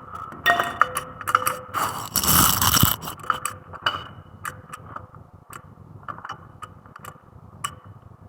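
Metal clinks, knocks and scraping from hand tools and brake parts being handled during a front brake pad change, with a louder scrape lasting about a second, about two seconds in.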